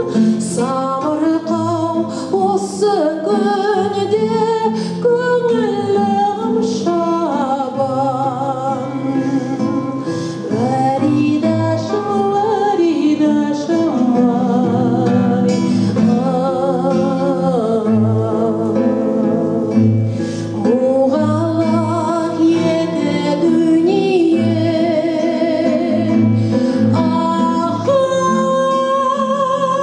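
A song: a solo voice singing long held notes with heavy vibrato over instrumental accompaniment.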